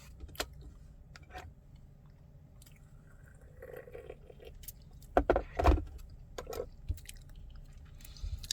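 Quiet mouth sounds of someone tasting tea: scattered small clicks and smacks, with a couple of louder short sounds a little after halfway.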